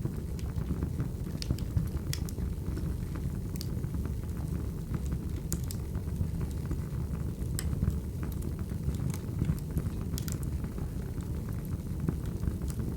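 Wood fire crackling: a steady low rumble of burning logs with sharp snaps and pops at irregular moments, about one a second.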